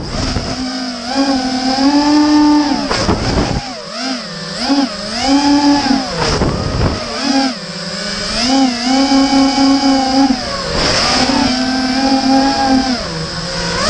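A 220-size FPV racing quadcopter's brushless motors and propellers whining, heard from its onboard camera, the pitch rising and falling constantly with the throttle. It drops away briefly about three times with a rush of air, over a steady high whine.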